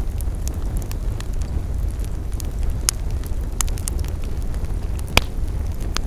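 Campfire burning, with scattered sharp crackles and pops over a steady low rumble; one louder pop comes a little after five seconds.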